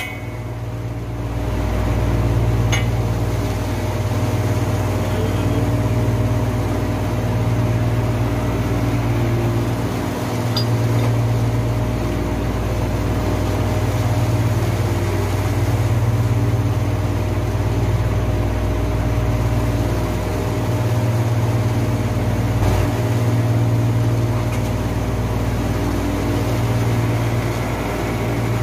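A machine running steadily with a low hum that swells and eases every few seconds, over a steady higher tone.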